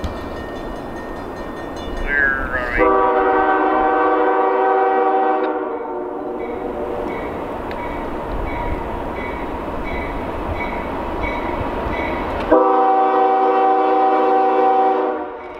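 Locomotive air horn sounding two long blasts about seven seconds apart, over the steady rumble of a train rolling by.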